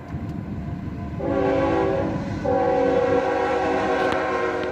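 Freight locomotive's multi-chime air horn sounding for a grade crossing: a blast of about a second starting a second in, then after a brief break a longer held blast, over the low rumble of the passing train.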